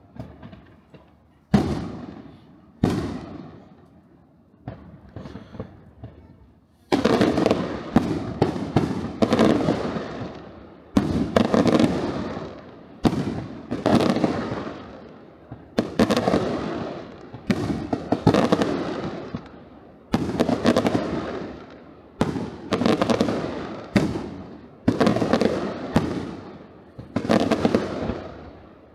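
Aerial fireworks bursting: a few separate bangs and scattered crackles, then from about seven seconds in a dense barrage of bangs in quick volleys, each with a long echoing tail.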